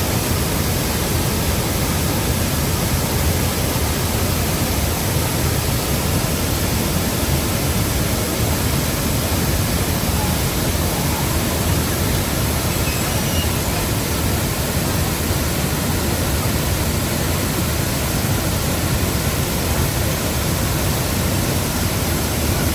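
Large jungle waterfall at full rainy-season flow, pouring over big rocks: a loud, steady rush of water.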